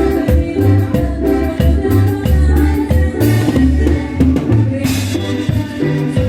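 Cumbia band playing live: a bass line moving between low notes under sustained melody tones and steady, evenly spaced percussion.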